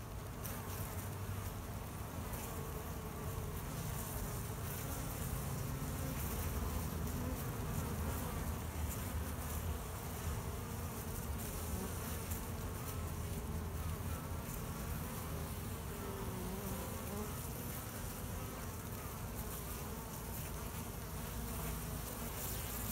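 Honeybees buzzing at the entrance of their hive: a steady, dense hum of many wings, with single bees' buzzes wavering up and down in pitch as they fly close.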